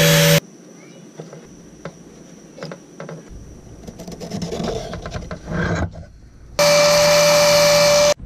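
Makita 4.5-inch angle grinder with a flap disc running with a steady hum as a hardwood block is ground against it, cutting off abruptly about half a second in. Several seconds of much quieter rubbing and scraping on wood by hand with a few light clicks follow. The grinder starts again near the end and stops abruptly.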